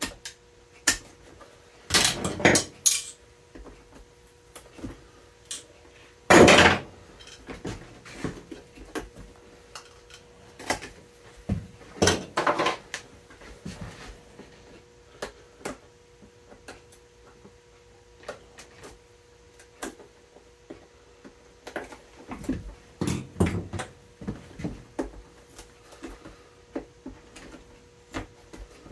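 Cobbler's knife and hand tools cutting and prying a Goodyear welt off a boot: irregular clicks, scrapes and knocks, with a few louder bursts, the loudest about six seconds in.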